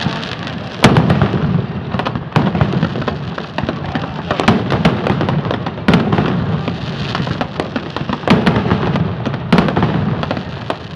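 Fireworks display: a dense, continuous crackle of small bursts, with louder booms about every one to two seconds.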